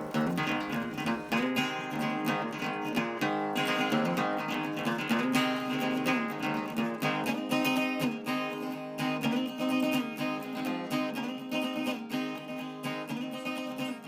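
Background music: a strummed and plucked acoustic guitar.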